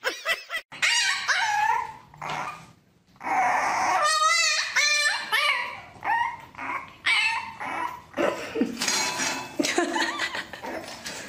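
Dogs whining and yelping in short calls that slide up and down in pitch, with a fast wavering whine about four seconds in.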